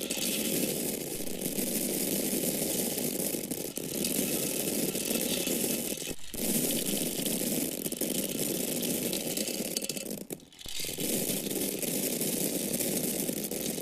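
Dry corn kernels falling and pouring, a continuous dense rattle of many small hard grains striking one another and a surface. The flow drops briefly about six seconds in and stops for about half a second near ten and a half seconds before going on.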